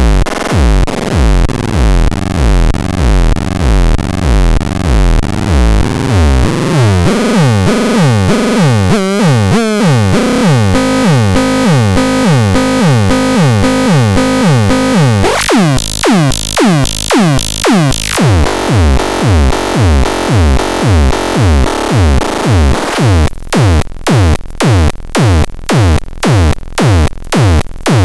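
Minimal techno: a steady, pulsing electronic kick beat under repeating synthesizer tones. About seven seconds in the low beat thins out while falling synth sweeps take over. The full beat comes back in the second half.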